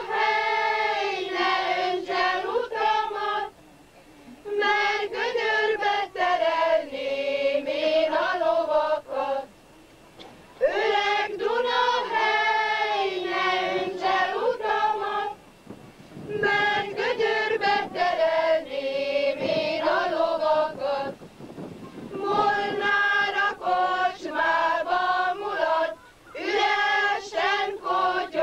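A choir of high voices singing a song in phrases a few seconds long, with brief pauses between them.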